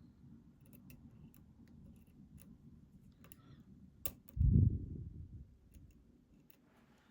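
Light metallic clicking of a deep hook pick and tensioner working the pins inside a challenge lock. A sharper click comes about four seconds in, followed at once by a low thud of the lock being handled.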